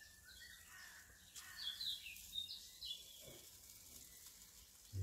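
Faint birdsong: several short, quick chirps about halfway through, over a quiet, steady background.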